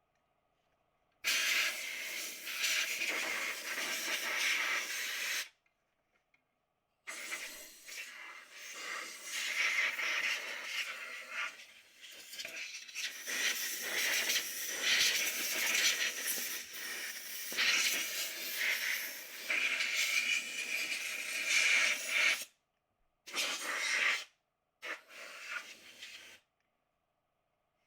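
Compressed-air blow gun hissing in blasts as it blows dust out of the refrigerator's coils and around its motor. There is a blast of about four seconds, then a long one of about fifteen seconds, then a few short blasts near the end.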